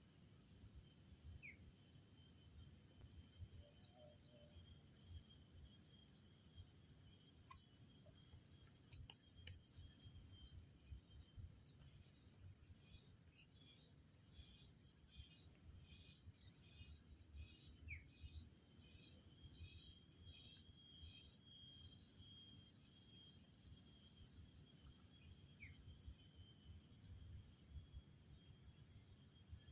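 Faint outdoor ambience: a steady high-pitched insect drone with scattered bird chirps, and a run of quick repeated bird notes through the middle. No engine is running.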